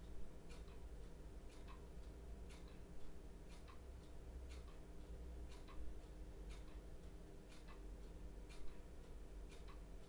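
Clock ticking steadily, about once a second, in a quiet room, over a faint steady low hum of room tone.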